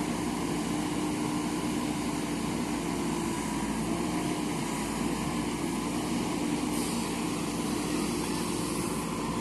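Backhoe loader's diesel engine running steadily at an even pitch.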